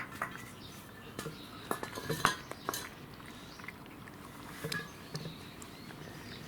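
Scattered light clinks and knocks of a cat's food dish being handled during feeding, the sharpest a little past two seconds in.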